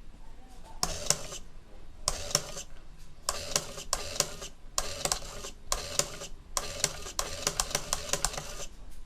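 3D-printed useless box working: its servomotor whirs in short bursts, with plastic clicks and clacks from the toggle switch and the moving arm and lid. About six runs come in quick succession, and the last is longer and busier than the rest.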